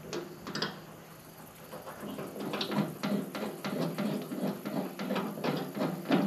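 Background music with an even percussive beat fading in about two seconds in, after a couple of faint clicks.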